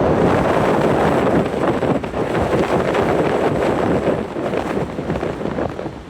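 Strong wind buffeting the microphone, gusting unevenly and easing near the end.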